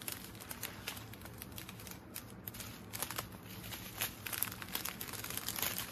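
Small plastic zip-top bags of diamond-painting drills crinkling as they are handled. The light crackles get busier about halfway through.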